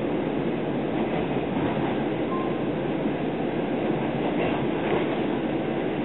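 Steady rolling noise of a 25Z passenger coach running at speed, heard from inside the cabin: a dense, even rumble of wheels on the rails.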